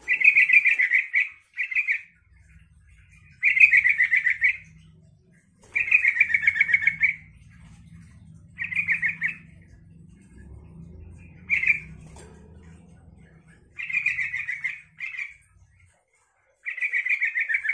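Yellow-vented bulbul (trucukan) singing its bubbly, chattering song in short phrases. Each phrase is a rapid run of notes up to about a second and a half long, and they are repeated about eight times with short pauses between.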